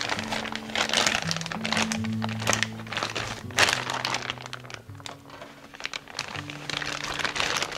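Plastic zipper freezer bag crinkling and rustling in several bursts as it is handled with bread dough inside, with one sharp crackle a little past halfway, over background music.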